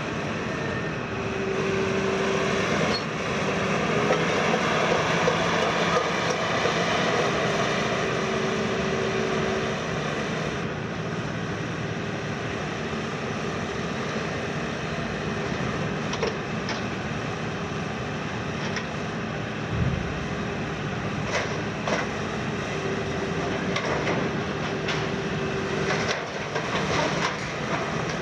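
Hitachi KMC 380 S-6 long-front demolition excavator's diesel engine and hydraulics working hard, with a humming tone that comes and goes, louder from about two to ten seconds in. In the second half come a low thump and several sharp cracks and knocks of the building being torn down.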